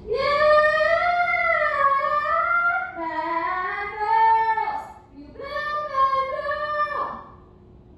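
A woman singing three long, high held notes without words, each sliding gently in pitch, the middle one lower: vocal warm-up singing for the show's mic sound check.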